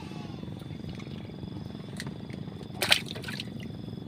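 Water lapping steadily, with a short cluster of sharp clicks a little under three seconds in.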